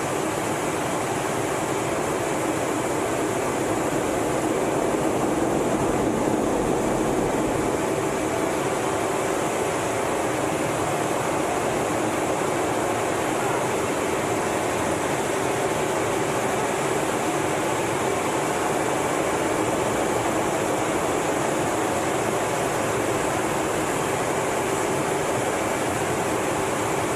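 Steady cockpit noise inside a twin-engine F/A-18 Hornet in flight: engine and airflow noise with a faint high whine, unchanging throughout.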